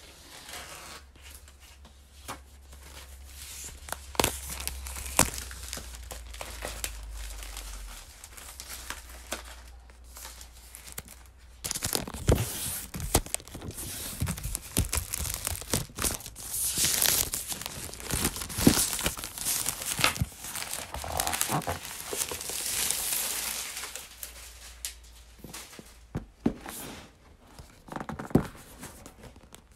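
Plastic shrink-wrap being torn off a 16-inch MacBook Pro box along its pull tabs and pulled away, crackling and crinkling in two long stretches, the second louder, with scattered small clicks and taps of hands on the cardboard box.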